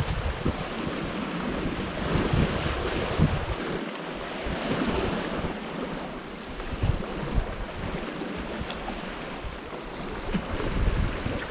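Small waves washing against a rocky sea shore, with wind gusting over the microphone in low rumbles that grow stronger near the end.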